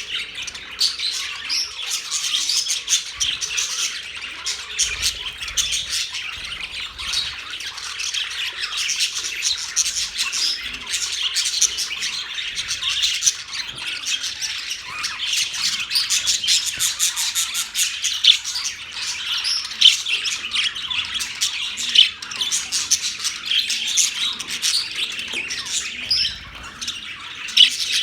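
A flock of budgerigars chattering and squawking nonstop, many short overlapping chirps and warbles at once.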